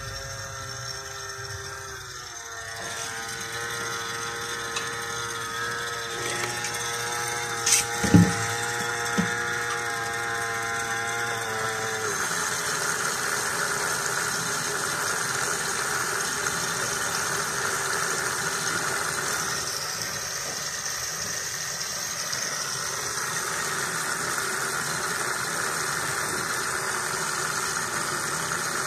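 Small electric pump, converted from a disinfectant spray gun, running steadily as it sucks brake fluid from a caliper bleed screw into a bottle. Its whine changes to a rougher, noisier hum about twelve seconds in, with a few sharp clicks shortly before.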